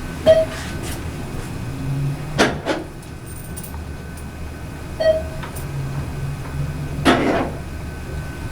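Modernized ThyssenKrupp elevator car travelling with a steady low motor hum. Two short tones sound, and twice, about four and a half seconds apart, a brief scraping rub that the riders take for the car door clutch rubbing against the landing doors' pickup rollers as it passes floors, a new sound that suggests something needs readjusting.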